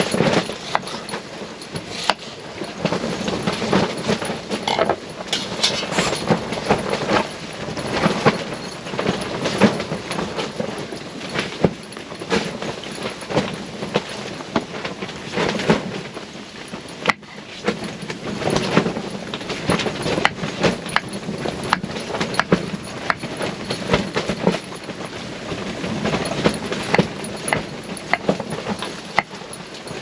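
Knife slicing and chopping an onion on a wooden cutting board, many small irregular knocks, over a steady rushing of storm wind buffeting the tent fabric.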